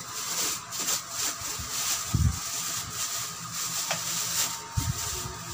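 Clear plastic wrapping crinkling and rustling as it is pulled off and bunched up by hand, with low handling thumps about two seconds in and near the end.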